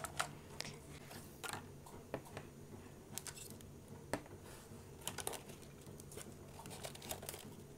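Faint, scattered clicks and rustles of hands handling a cardboard toy box and its clear plastic insert, and setting small plastic Play-Doh tubs down on a table.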